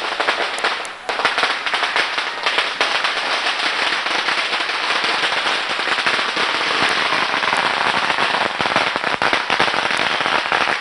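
Firecrackers going off in rapid succession, a dense, near-continuous crackle of many small sharp bangs, with a brief lull about a second in.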